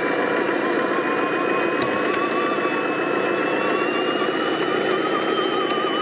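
Steady whine of small electric motors from RC models running. It has a high tone that drifts slowly up and down in pitch and a lower wavering tone.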